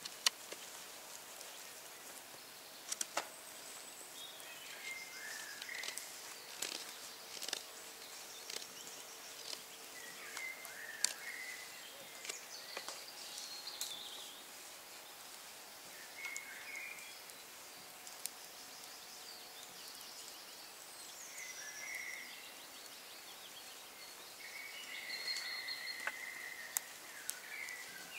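Fixed-blade knife cutting notches into a green wood stick, with sharp cutting clicks every few seconds. Wild birds sing in short repeated phrases throughout.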